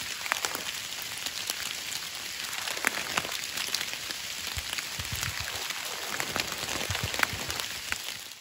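Steady rain falling on a surface: an even hiss with many separate drop hits scattered through it. It cuts off abruptly at the end.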